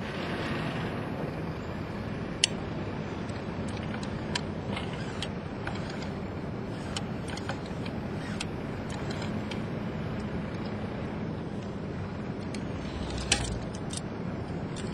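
Steady outdoor background rumble with scattered metallic clicks and clinks from rescue rope hardware being handled. The two sharpest clicks come about 2.5 s in and near the end.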